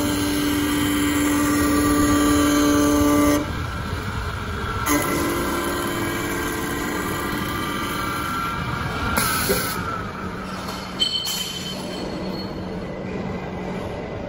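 L1530A CNC wood lathe running and cutting a wooden baluster: steady machine noise with a high whine from the spinning cutters. The whine breaks off about three seconds in, returns, then slides down in pitch near the middle and the noise eases off a little.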